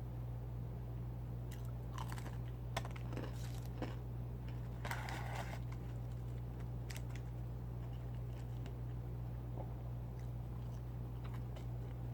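A person eating fried chicken and fries: a few short crunchy bites and chewing, bunched in the first half, over a steady low hum.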